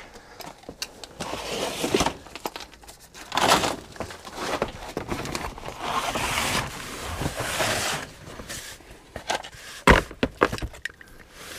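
Rustling and scraping of a cardboard sheet and a plastic oil drain tray being slid along the ground as someone gets down under a car, with a sharp knock about ten seconds in.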